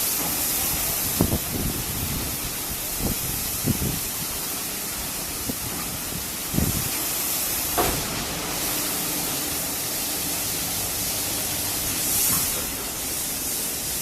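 Rollover car wash machine spraying through its nozzles: a steady loud hiss, with a few short knocks.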